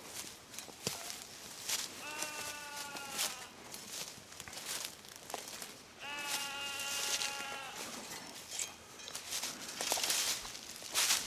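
A sheep bleats twice, two long, level calls about four seconds apart, the second a little longer. Footsteps in dry grass and brush tick and crackle throughout.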